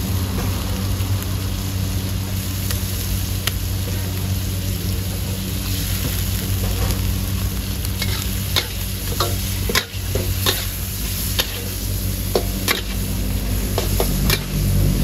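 Food sizzling as it is stir-fried, with a metal spatula scraping and knocking against the pan. There are sharp clanks, about a dozen, from halfway through, over a steady low hum.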